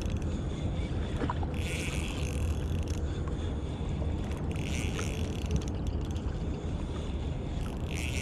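Steady low rumble of wind and water around a small boat. Three times, for about a second each, a Shimano Stradic Ci4+ 1000 spinning reel's drag buzzes as a hooked fish pulls line.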